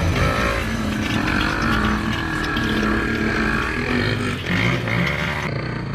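Quad bike (ATV) engine running, its pitch rising and falling with the throttle.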